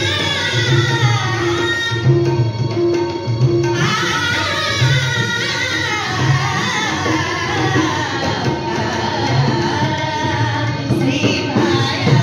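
A woman sings a Banjara song into a microphone over a PA, accompanied by tabla, a dholak and an electronic keyboard keeping a steady rhythm. The voice breaks off briefly about two seconds in while the drums carry on.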